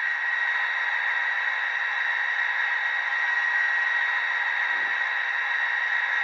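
LokSound V4 model-locomotive sound decoder playing a Class 57/0 diesel's idle through the model's small speaker: a steady hissy hum with thin high tones and no bass. A faint low thump about five seconds in.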